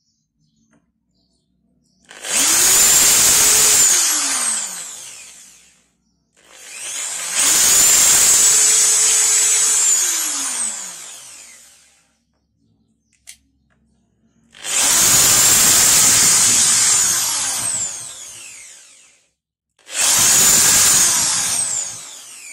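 Ingco electric drill run with no load four times, its motor whining up to full speed, holding steady, then winding down in falling pitch after each release of the trigger.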